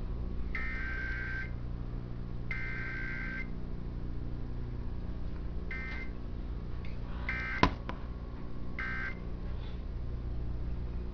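Emergency Alert System required weekly test data bursts heard through a TV: two harsh buzzy digital bursts of about a second each a second apart (the SAME header), then three short bursts about a second and a half apart (the end-of-message code). A sharp click falls just after the second short burst, over a steady low hum.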